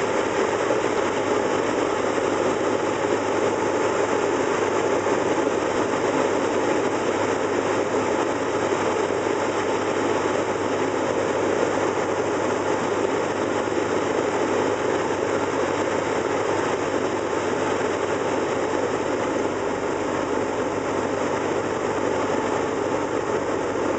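Cessna 172's piston engine and propeller droning steadily in flight, heard from inside the cabin along with the rush of air.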